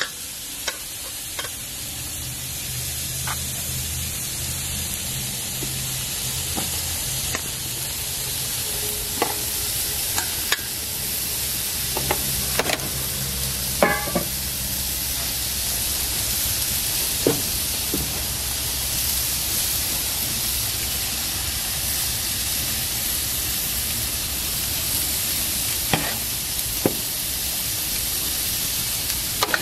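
Steaks sizzling on grill grates, a steady hiss, with scattered sharp clicks of metal tongs and a seasoning shaker against a metal sheet pan.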